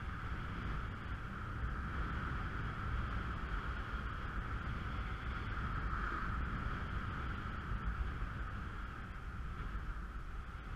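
Steady rush of wind buffeting the microphone and water hissing under a kiteboard riding across choppy water, with a low rumble beneath.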